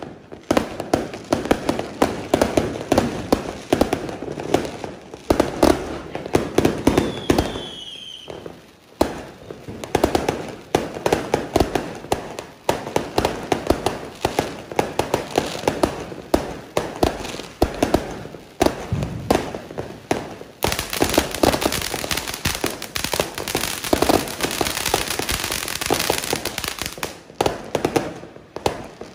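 Fireworks going off close by: a dense, uneven run of sharp pops and crackles throughout. About twenty seconds in, a loud hissing spray of sparks joins in and lasts around six seconds.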